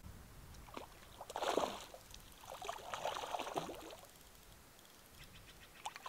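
A hooked trout splashing at the lake surface as it is played on a fly rod, in two bursts, the first about a second in and the second from about two and a half seconds in, followed by a few sharp ticks near the end.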